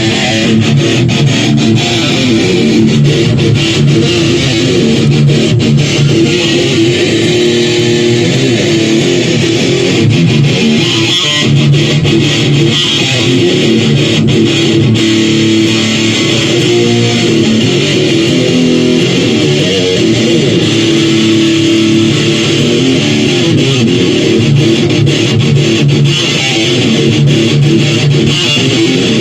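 Electric guitar played continuously through an amplifier during a sound check, strummed chords and notes, with a bass guitar likely underneath.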